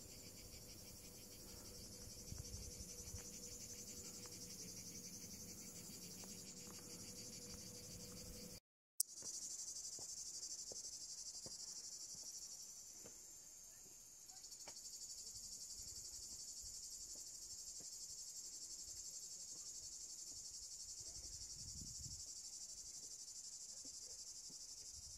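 Cicadas in a steady, high-pitched chorus of chirring. It breaks off for a moment about nine seconds in, then returns louder.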